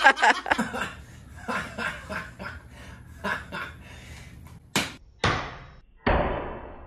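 Laughter trailing off, then three sharp slam-like hits less than a second apart, each fading away.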